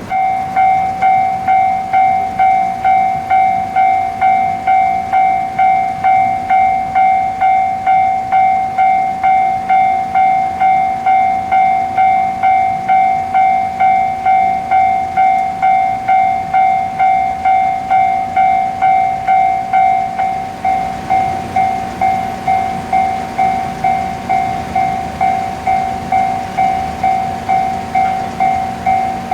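Japanese level-crossing warning bell (kan-kan) starting suddenly and ringing about twice a second with a steady, high clanging tone. In the last third the bell's tone thins and the low running noise of an approaching train grows beneath it.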